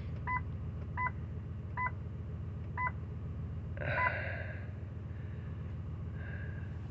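Short electronic beeps from the dashboard, five at uneven intervals, the last with a brief rustle. Under them runs the steady low idle of a freshly rebuilt 2007 Ford 5.4L three-valve V8.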